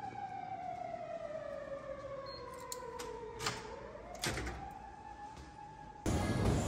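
A long wailing tone slides slowly down in pitch for about three and a half seconds, then rises again and holds. Around the middle, a few clunks and clicks come as a glass door is pushed open. Near the end a louder, steady rushing noise suddenly takes over.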